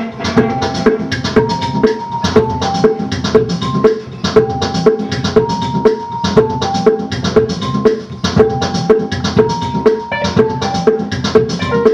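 Live instrumental music: a pedal steel guitar played with a steel bar, holding long notes that step from one pitch to another, over a steady drum beat.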